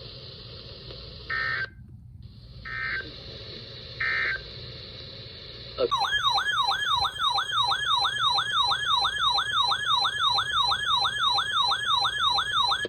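Three short, buzzy Emergency Alert System data bursts about a second and a half apart, then a loud electronic alert tone that warbles up and down about three times a second.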